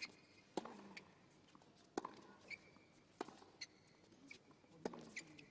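Tennis rally on a hard court: sharp pops of rackets striking the ball, about five in all at intervals of one to one and a half seconds, with short high squeaks of players' shoes on the court in between.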